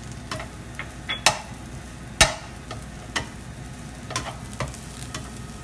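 Slotted spatula stirring vegetables and scrambled egg in a non-stick frying pan, giving irregular knocks and scrapes against the pan, two of them sharper about a second and two seconds in, over a steady frying sizzle.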